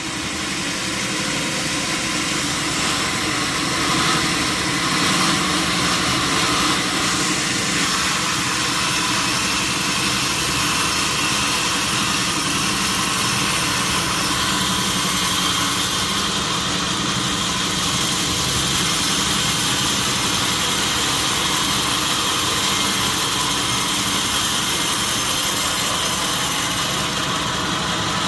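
Sawmill saw running steadily, a continuous hissing machine noise with no pauses.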